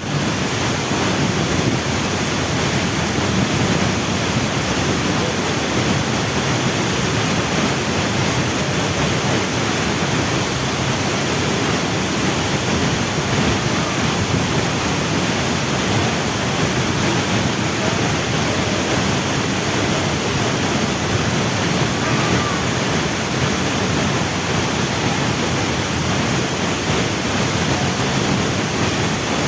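Waterfall rushing: a loud, steady, unbroken roar of falling water.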